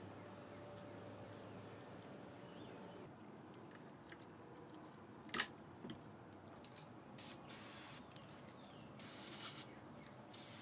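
Small metal clicks as new stainless abutment clips are pressed onto a brake caliper bracket, with one sharp snap about halfway through. In the second half come several short hisses of an aerosol spray can.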